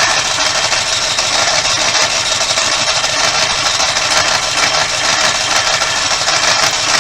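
RV onboard generator being cranked by its starter, a loud steady mechanical whir that does not catch and run: the generator is failing to start.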